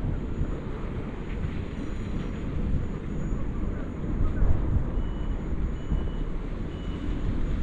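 Outdoor urban ambience: a low, uneven rumble, with a faint short beep repeating from about five seconds in.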